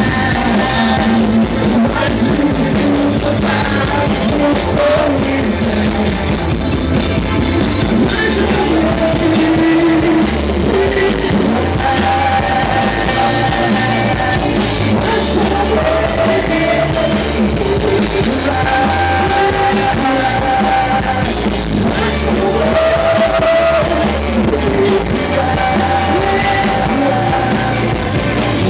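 Loud rock music with singing and guitar, playing continuously.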